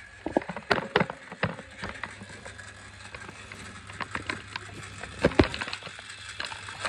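Handling noise from a phone being moved about: irregular knocks and clicks over a faint steady low hum.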